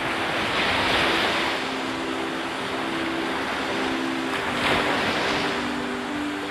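Ocean surf breaking on a beach, swelling twice: about a second in and again near five seconds. Soft, held low musical notes sit underneath and change pitch step by step.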